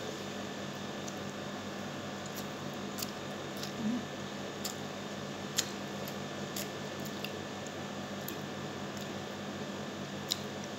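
Eating by hand: fingers mixing and squishing rice and pork adobo on a plate, and chewing, with a few scattered soft clicks and smacks over a steady low hum.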